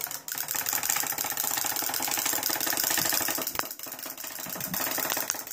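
Wind-up clockwork motor of a 1998 Burger King Rugrats Hopping Chuckie toy running down after being wound. It makes a rapid, steady rattle as the small plastic toy hops on a hard surface.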